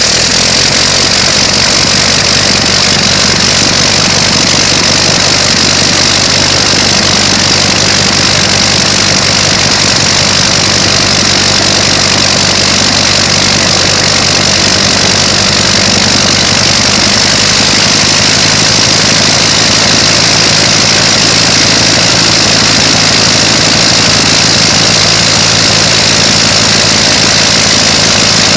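A 1917 Clerget 9B nine-cylinder rotary aircraft engine running steadily with its propeller turning, loud and unbroken throughout.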